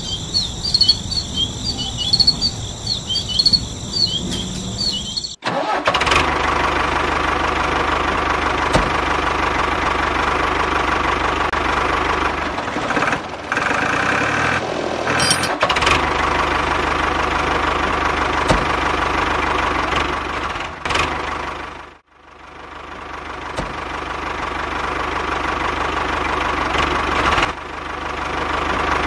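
Birds chirping for about five seconds, then an abrupt switch to a steady engine running sound for the mini tractor. The engine sound cuts out suddenly about two-thirds of the way through and swells back up.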